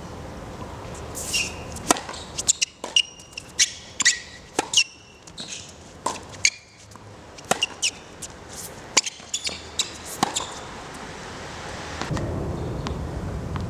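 Tennis rally on a hard court: sharp racket strikes and ball bounces in quick, irregular succession, with a few short sneaker squeaks. The hits stop about ten seconds in.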